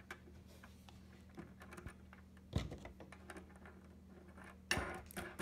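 Fingers working the end pin jack and its nut on a Taylor GS Mini acoustic guitar: scattered small clicks and taps, with a knock about two and a half seconds in and a louder one near the end.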